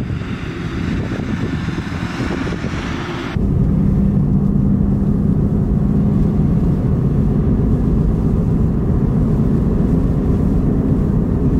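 A loader tractor drives past with wind hiss for about the first three seconds. Then, after an abrupt cut, comes a louder, steady low rumble with a constant drone: a vehicle travelling along a snow-covered highway.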